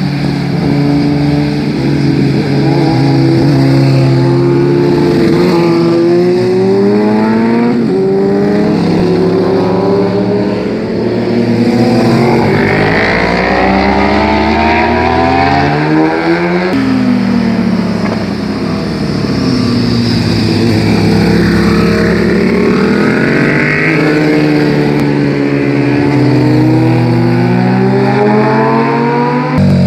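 Sport motorcycles passing one after another through a hairpin bend, their engines rising in pitch as they accelerate and dropping back between gear changes or as each bike goes by. The sound changes abruptly about halfway through, as a new pass takes over.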